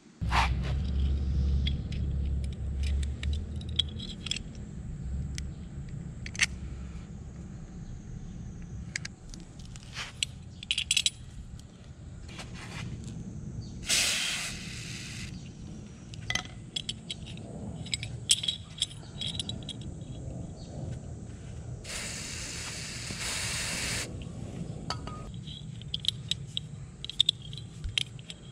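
Aerosol spray hissing through a thin red straw onto the rusted pivot rivet of an old folding knife: one short burst about halfway through, and a longer burst of about two seconds later on. Around the bursts are light metallic clinks and scrapes as the steel knife and pipe are handled.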